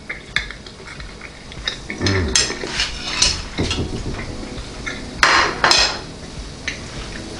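Cutlery clinking and scraping on a plate: scattered clicks at first, then busier clatter, and two louder rasping scrapes a little after five seconds in.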